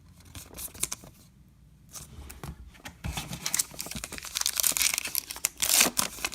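Baseball card pack wrapper being torn open and crinkled, starting about three seconds in and getting louder toward the end.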